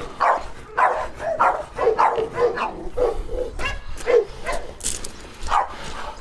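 Several kennelled dogs barking over one another, about two or three barks a second, eager for the food being prepared.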